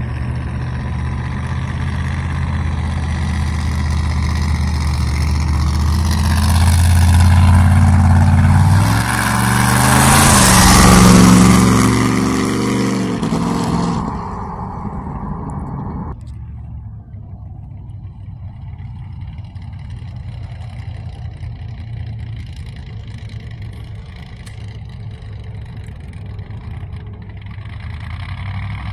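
1930 Ford Model A hot rod's engine accelerating, its pitch rising and stepping down once as it shifts, loudest as it passes about eleven seconds in, then fading. After about sixteen seconds the engine is heard running more steadily and more quietly from farther away.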